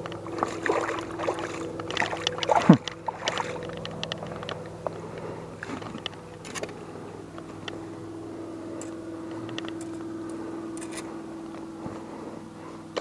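Water splashing and sloshing as a smallmouth bass is landed by hand at the water's edge, busiest in the first few seconds, over a steady low hum.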